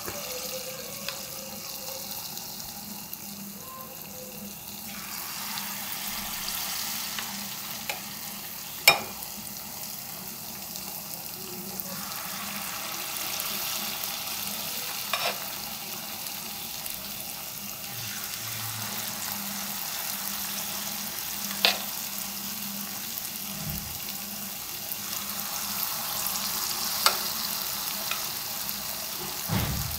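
Carrot bonda batter sizzling as spoonfuls fry in hot coconut oil in a non-stick pan. The steady frying is broken by four sharp clicks of the metal spoon, about six seconds apart.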